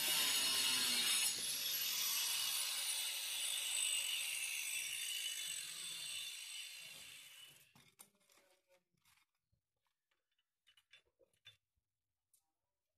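Handheld angle grinder with a cutting disc cutting into a plastic drain pipe. Its whine rises and then sinks as the disc bites, and the cutting fades out about seven seconds in. After that come only a few faint clicks.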